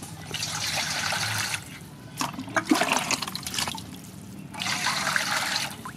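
Water poured from a plastic scoop into a stainless steel basin, splashing and filling it in three pours, each lasting a second or so.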